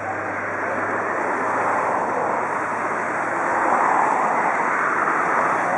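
Steady rushing hiss of steam escaping from a standing steam locomotive, swelling a little about halfway through.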